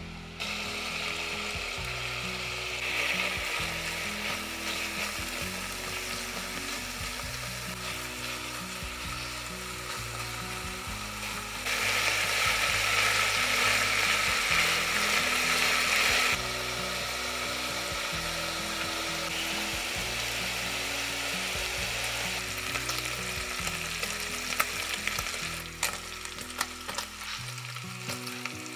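Diced pancetta sizzling as it fries in a nonstick pan, stirred now and then with a silicone spatula. The sizzling swells louder for about five seconds midway, and a few sharp spatula clicks come near the end.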